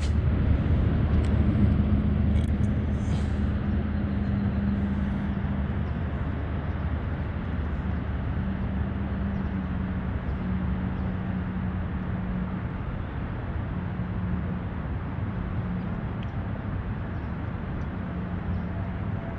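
Steady low outdoor rumble, with a low hum that fades in and out in stretches of a few seconds and a few faint clicks in the first few seconds.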